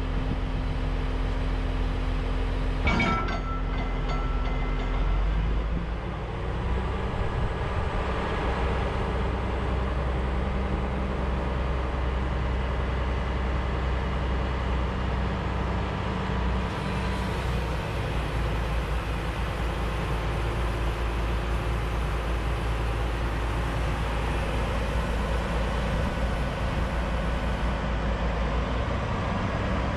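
The CAT C18 turbo diesel engine of a Caterpillar 988H wheel loader running steadily as the boom and bucket are worked down, with a single sharp knock about three seconds in.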